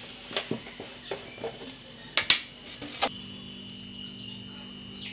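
Stainless steel kitchenware clinking and knocking: a string of sharp metal clinks, the loudest a little over two seconds in. About three seconds in, a faint steady hum sets in.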